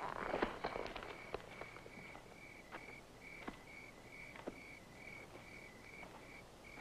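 Cricket chirping steadily and evenly, about three chirps a second. A few soft knocks and rustles come in the first second or so, with fainter taps later.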